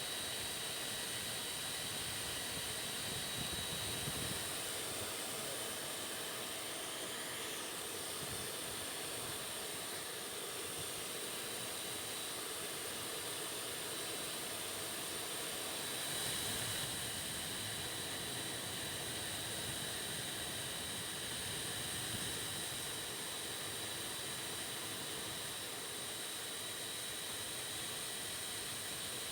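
Small homemade DC-motor grinder running steadily: an even hiss with a thin, high, constant whine, swelling slightly a few times.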